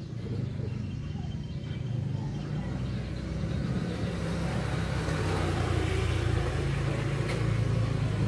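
Low rumble growing steadily louder.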